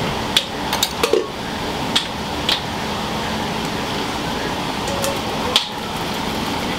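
Dishes and utensils clinking in a ramen shop kitchen, about half a dozen short sharp knocks over a steady hiss of kitchen noise.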